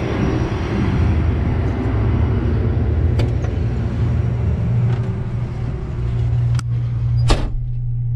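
Combine harvester's engine running with a steady low hum, then two sharp knocks near the end as the cab door is shut; after that the outside noise drops away and the hum carries on more muffled, heard from inside the cab.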